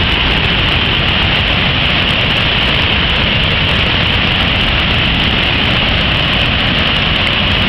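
Steady loud rush of a large waterfall in heavy flow, heard up close where the water crashes into the churning plunge pool.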